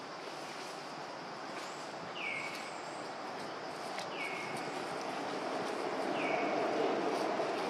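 A bird calls a short falling note about every two seconds, four times, over a steady outdoor background hum that grows a little louder near the end.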